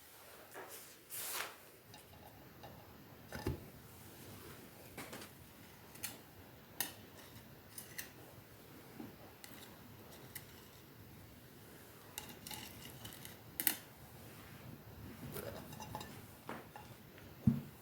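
Scattered light clicks, taps and clinks of small objects being handled close by, at irregular moments.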